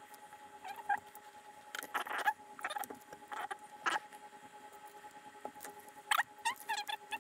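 Light scratching and crinkling as thin thermal pads on their plastic backing film are handled and pressed down onto a graphics-card cooler, in short scattered bursts. A few brief squeaky sounds that bend in pitch come near the end.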